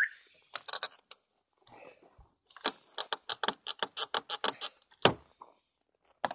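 A fast run of about a dozen brisk scraping strokes, some six a second, on the snow- and ice-covered body of a frozen car, followed about five seconds in by a single heavier thump.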